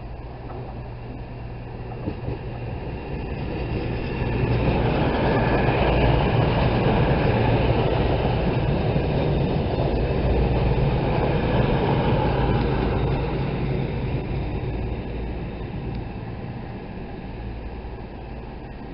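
CrossCountry Class 220 Voyager diesel multiple unit passing close by, its underfloor diesel engines running with a steady low hum under the rumble of wheels on rail. The sound builds over a few seconds, is loudest for several seconds as the train goes past, then fades.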